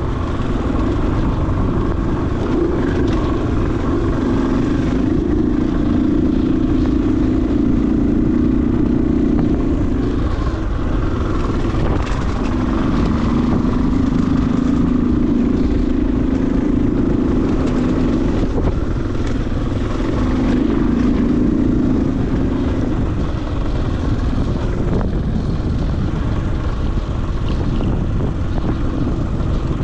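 Dirt bike engine running while being ridden, its note swelling in three stretches of throttle and easing off between them, over a steady low rumble.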